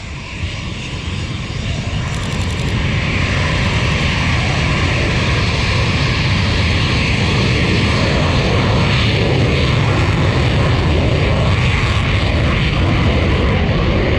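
RAF Eurofighter Typhoon's twin jet engines on full afterburner during a departure: a loud roar that builds over the first two or three seconds, then holds steady.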